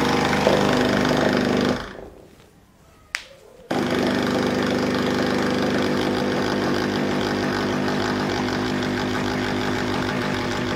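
Saachi espresso machine's pump buzzing steadily as it pushes descaling solution through the brew head on the double-shot setting, to flush the tank. The buzz stops about two seconds in, a single click follows, and it starts again under a second later and runs on steadily.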